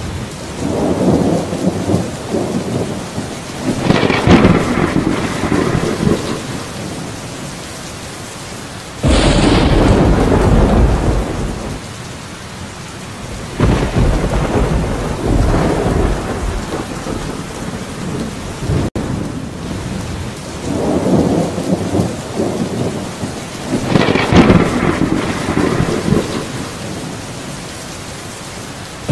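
Thunderstorm: steady rain with long, rolling rumbles of thunder that swell and fade every few seconds, and a sudden loud thunderclap about nine seconds in.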